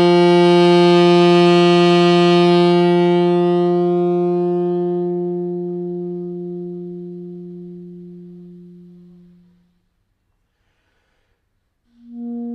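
Tenor saxophone holding one long low note in a long-tone exercise, loud at first and then fading slowly and evenly to nothing about ten seconds in. After about two seconds of silence a new, higher long note begins near the end.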